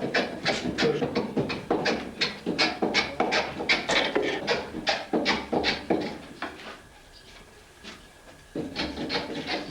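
A hand tool working wood in quick, repeated short strokes, about three or four a second, scraping and shaving the surface. The strokes stop for about two seconds near the end, then start again.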